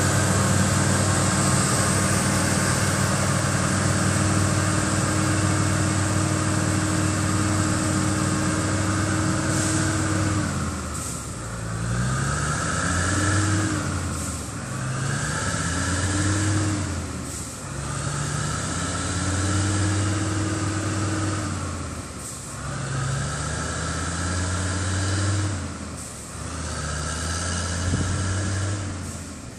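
Loaded Mercedes-Benz 3836 log truck's diesel engine pulling away under load, steady at first. About ten seconds in, its revs begin rising and dropping again and again, every three to four seconds, as it works up through the gears and grows fainter.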